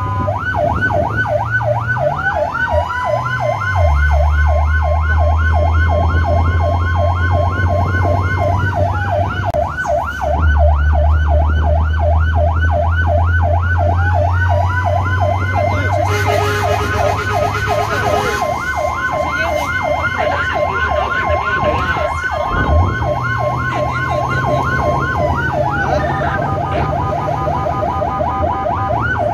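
Emergency vehicle's siren sounding a fast yelp, joined twice by a second tone that glides up, holds steady for several seconds and glides back down, over the low hum of the vehicle's engine, heard from inside the cab while under way to a fire. Near the end the siren switches to a different pattern.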